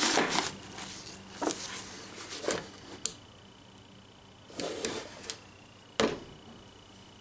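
Rustling of a nylon insulated bag, then a series of light plastic knocks and clicks as a Humminbird Helix 5 fishfinder on its plastic stand is handled and set down. The sharpest click comes about six seconds in.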